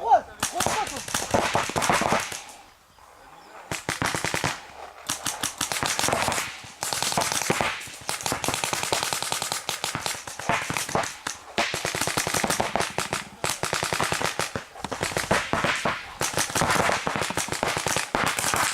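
Paintball markers firing rapid strings of shots in quick succession, with short pauses between the strings and a longer lull about three seconds in.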